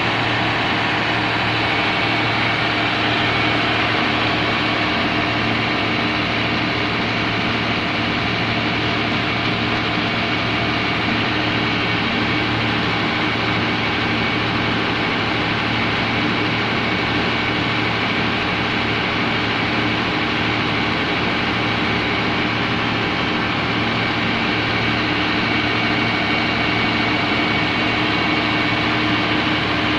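Komatsu SA6D110 six-cylinder diesel engine of a 130 kVA open-type generator set running steadily at constant speed under test.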